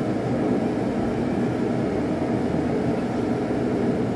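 Blacksmith's forge running with a steady rushing noise while a railroad-spike blade heats to forging colour.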